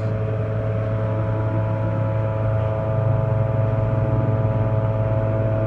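Lincoln 455 welding power source running on test: a steady electrical hum with several higher steady tones over it. About three seconds in it grows a little louder and buzzier.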